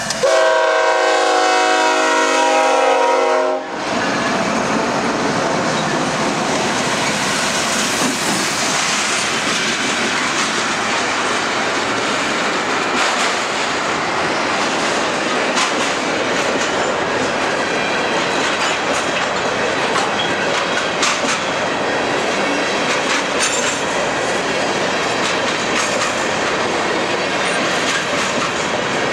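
Diesel freight locomotive's horn sounding a loud chord of several notes for about three and a half seconds, then cutting off sharply. After that the freight train passes close by: a steady noise of locomotives and rolling freight cars, with the wheels clicking over rail joints.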